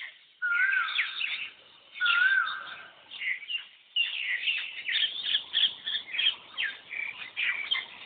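Asian koel calling: two wavering whistled calls about a second apart, then a rapid stream of short chirps with other birds.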